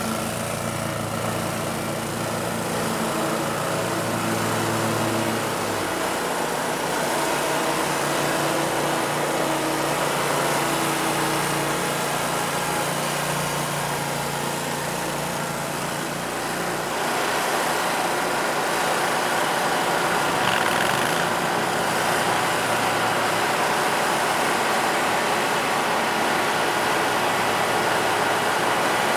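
Bobcat zero-turn riding mower's engine running steadily, with a hiss of the blades and air over the top. Its pitch shifts about six seconds in and again around seventeen seconds in, running slightly louder after.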